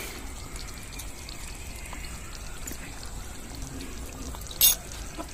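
Curry gravy simmering in a small clay pot over a tiny twig fire: a faint, steady bubbling. One sharp click sounds near the end.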